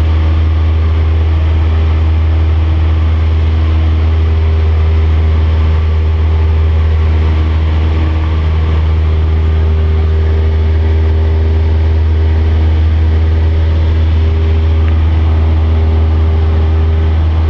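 Cessna 172's piston engine and propeller running steadily in cruise flight, heard from inside the cabin as a loud, even, low drone with a rushing hiss of airflow over the airframe.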